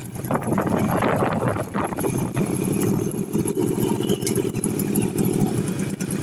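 Yamaha V-Max trike's V4 engine idling steadily.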